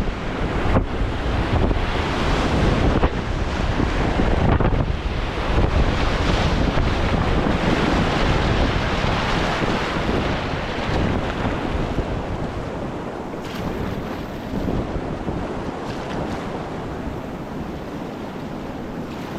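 Rushing whitewater of a river rapid, a dense steady roar of water with wind buffeting the microphone. It is loudest in the first half and eases somewhat toward the end.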